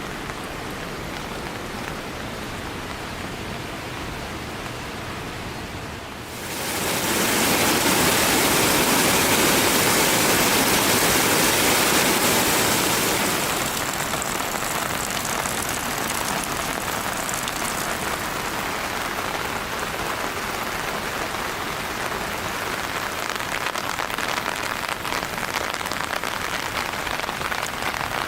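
Steady rain falling, with no tonal sounds. About six seconds in it turns suddenly heavier and louder for several seconds, then eases back to a steady rain a little stronger than at first.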